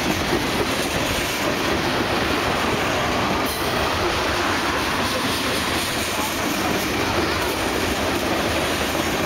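Freight train of tank cars and hoppers rolling past close by: the steady noise of steel wheels running on the rails.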